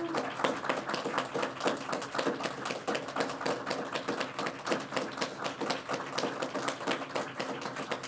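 A congregation applauding: many people clapping steadily, a dense patter of hand claps.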